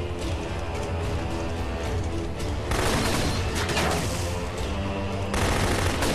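Background film music under two bursts of rapid gunfire: the first comes a little before halfway and lasts about a second and a half, the second starts near the end.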